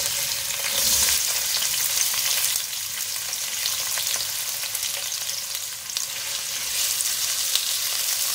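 Sliced onions freshly tipped into hot oil in an aluminium pot, sizzling with a steady frying hiss. Near the end a wooden spatula stirs through them.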